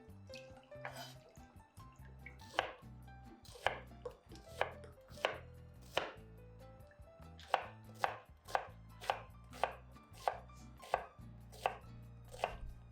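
Knife chopping vegetables on a cutting board: a run of sharp strokes, uneven at first and then about two a second.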